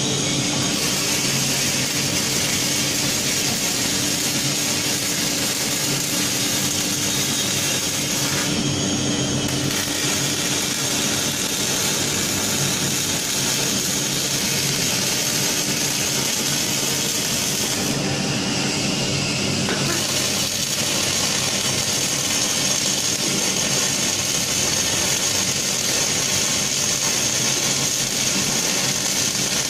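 Steady, even noise of a robotic welding cell at work: a six-axis welding robot arc-welding a forklift mast with wire-fed welding, its arc hissing over a constant machine hum.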